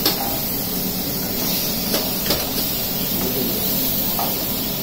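Metal spoon stirring diced potatoes in a pan, with a few sharp clinks against the pan near the start and around two seconds in, over a steady hiss.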